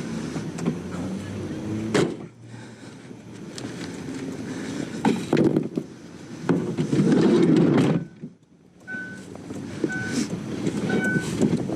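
Minivan doors and cargo being handled: several sharp clunks and a loud rush of noise near the middle. A repeating electronic warning chime then starts and sounds about every two-thirds of a second.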